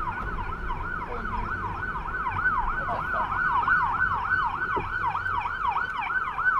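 A siren sounding a rapid yelp, its pitch sweeping up and down about three times a second, over the low rumble of the car on the road.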